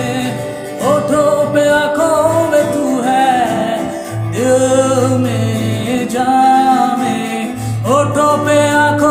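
Hindi gospel song played on a strummed acoustic guitar, with a male voice singing three long held notes, each sliding up into pitch.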